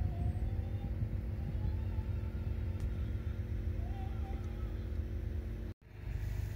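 Wind buffeting the microphone outdoors, a heavy uneven low rumble with a faint steady hum under it. The sound drops out for a moment near the end and then resumes.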